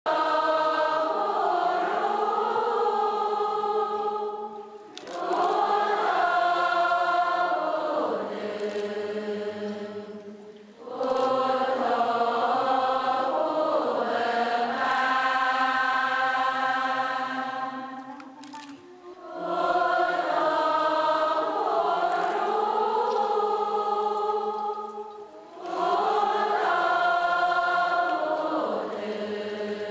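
Group of voices chanting together in a Buddhist devotional chant, in five long sustained phrases separated by brief pauses for breath.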